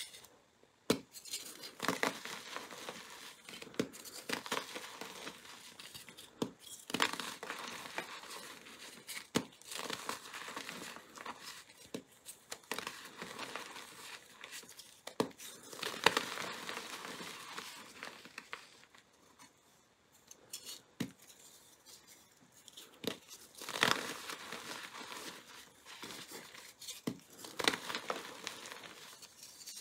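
Glitter-coated gym chalk blocks being broken and crushed by hand: dry crunching and crumbling, with sharp cracks as chunks snap apart. It goes quieter for a moment around twenty seconds in.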